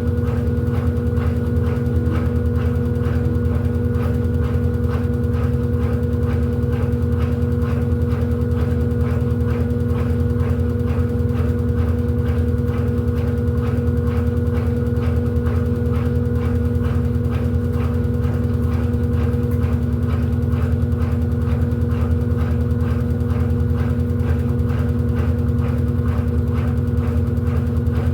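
Electrolux 14 kg LED14 washing machine running steadily: a constant motor hum with a fast, even ticking over it.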